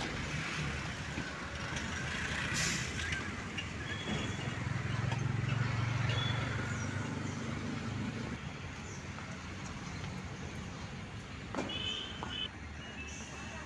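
Road traffic with a heavy truck's engine passing, its low hum loudest in the middle. A short sharp hiss about two and a half seconds in, and a few short high tones near the end.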